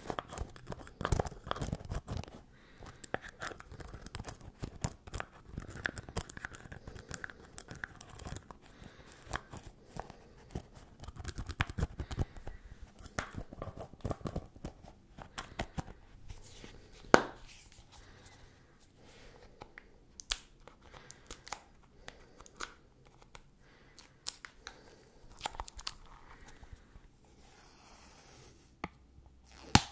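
Fingers tapping on a snus box: a run of quick, irregular taps and clicks, densest in the first half, with one sharp, louder click a little past halfway.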